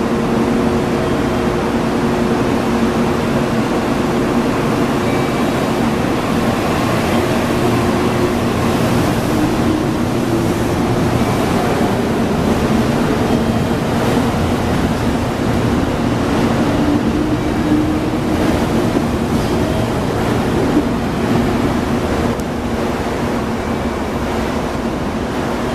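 JR Kyushu 787-series electric train pulling out and running past along a covered station platform: a steady rush of wheel and running noise over a constant hum, with a faint rising whine twice as it gathers speed.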